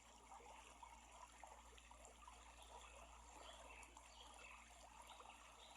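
Near silence: a faint, steady hiss with a low hum underneath.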